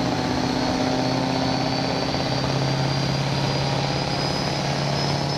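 Chevrolet Silverado pro street diesel pickup's turbocharged engine running hard under load against a pulling sled, with a high turbo whistle above it. Both the engine note and the whistle rise slowly and steadily in pitch.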